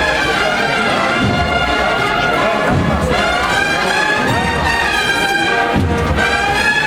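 Cornet and drum band playing a Holy Week processional march: massed cornets sound long held notes over occasional low drum strokes.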